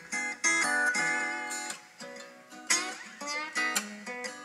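Background music on acoustic guitar: a run of plucked notes and strums.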